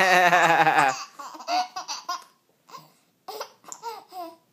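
Baby laughing: one long, wavering laugh in the first second, then shorter bursts of giggles that fall in pitch.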